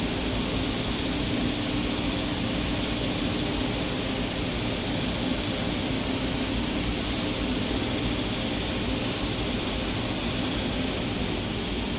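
Steady machinery drone of the container ship Maersk Montana under way, under a constant rushing noise, heard from the open deck.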